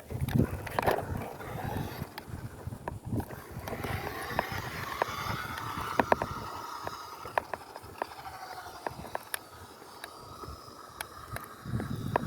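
A toy-grade RC car's small electric motor whines through its gearbox, its pitch wavering and rising about four seconds in as the throttle changes. Scattered sharp clicks and knocks come from the car bumping over rough ground.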